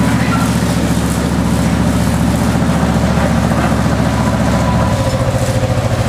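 Engine of the narrow-gauge diesel locomotive Walrus running steadily, its note dropping to a slower, more pulsing beat about five seconds in.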